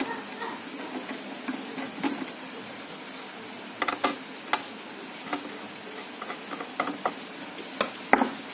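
Scattered light clicks and taps of a metal screwdriver and fingers handling a switch-mode power supply circuit board, a few irregular ticks with a small cluster about four seconds in.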